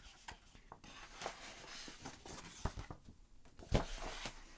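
Large sheets of heavy paper rustling and sliding as a big thin book is lifted out of a box and opened, with a few soft taps and one sharper thump a little before the end.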